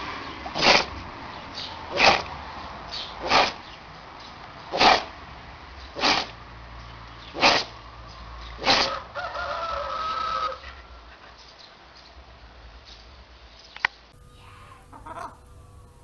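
A pet sneezing over and over: seven sharp sneezes at an even pace, about one every second and a half. A brief pitched call follows, and there is a single click near the end.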